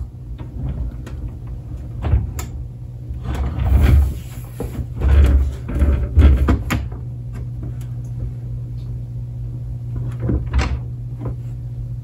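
Plastic cabinet and front grille of a Kenmore dehumidifier being handled and shifted by hand: a string of irregular knocks, clunks and rattles, heaviest from about four to seven seconds in, over a steady low hum.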